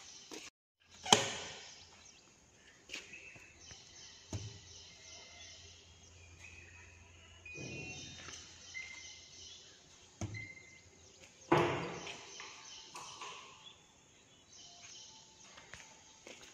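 Quiet workshop background: a faint low hum with a few scattered knocks and clunks, a sharp one about a second in and a louder one in the second half.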